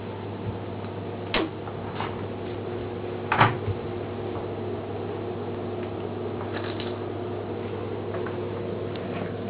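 Steady low hum in a small room, broken by a few brief clicks and knocks: one about a second and a half in, a softer one at two seconds, and the loudest around three and a half seconds.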